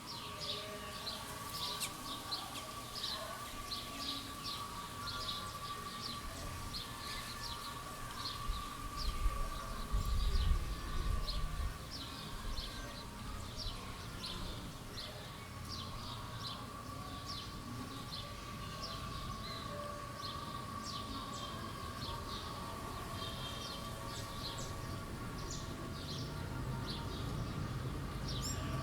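Street ambience: small birds chirping in quick, repeated short calls, with a steady high tone running under them for most of the time. A low vehicle rumble swells and passes about nine to eleven seconds in, and traffic rumble builds again near the end.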